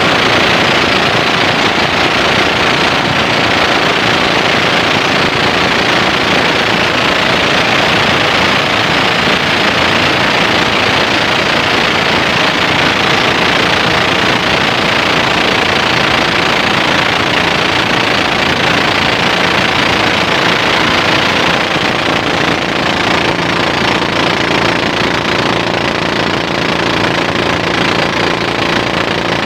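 Small inboard engine of a flat boat running steadily under way, with a fast knocking beat, over the rush of water churned past the hull.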